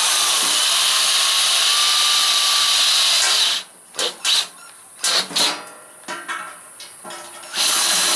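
Cordless drill boring a pilot hole through a metal grill lid. It runs steadily for about three and a half seconds, stops, gives a few short bursts, then runs steadily again near the end.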